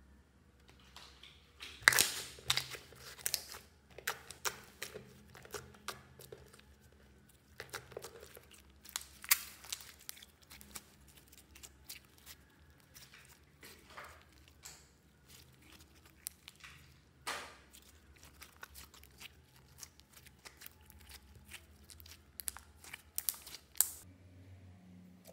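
Thick slime-and-putty mix being stretched, squeezed and folded by hand, giving irregular sticky pops, clicks and crackles, with louder clusters of pops every few seconds.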